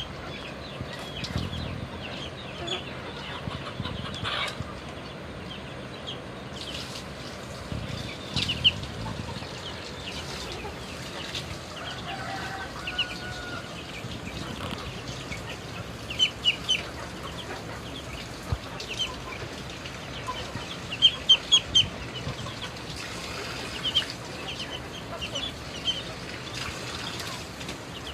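Fighting-breed roosters (Asil and Shamo) clucking, with many short, sharp, high calls, some in quick clusters, over a steady background hiss.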